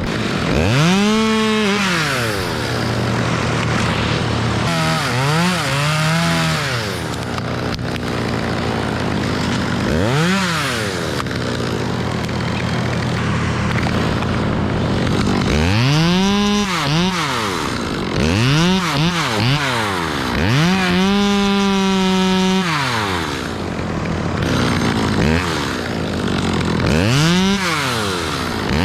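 Two-stroke chainsaw idling, then revved up and let back down to idle about seven times in short bursts. One rev, a little past the middle, is held at full speed for about two seconds.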